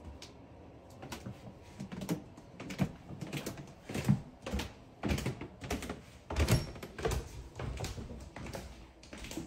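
Footsteps going down a flight of stairs, an uneven dull thump about twice a second.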